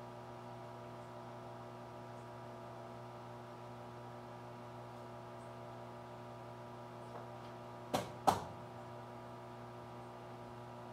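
Steady low electrical hum, with two short knocks in quick succession about eight seconds in.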